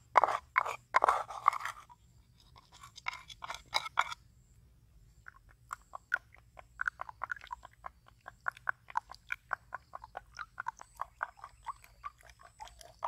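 Wooden spoon scraping in a wooden bowl of granules and clacking against the bowls, a few loud scrapes at the start and again about three seconds in. From about five seconds in, the spoon beats raw eggs in a coconut-shell bowl: a quick, even tapping and scraping, about five strokes a second.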